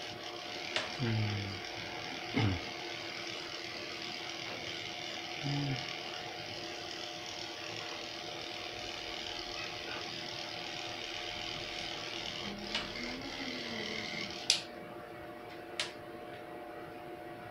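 Electric pet clippers running with a steady hum as they shave a Maltese's coat. Two sharp clicks come near the end.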